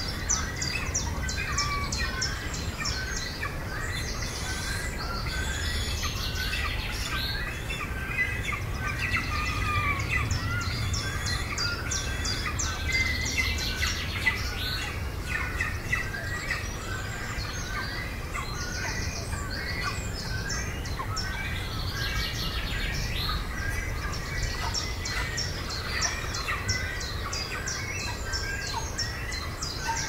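Many birds calling without a break in a Great Cormorant nesting colony: a dense chorus of short chirps and squeaks, with fast high ticking rattles above them and a low rumble underneath.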